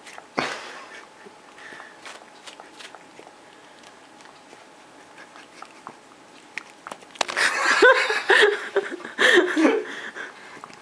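A man laughing heartily in several short bursts, starting about seven seconds in. Before that there is a brief loud rustle near the start, then a quiet stretch of faint small clicks and rustles as a cat licks at his head.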